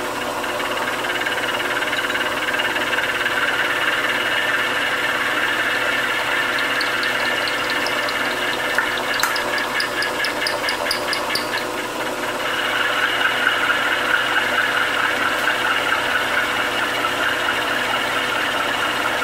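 Vertical milling machine running steadily while its end mill cuts about a quarter inch into annealed 4140 steel. A rapid, even ticking comes in about six seconds in and stops about twelve seconds in, after which the cutting noise turns rougher and a little louder.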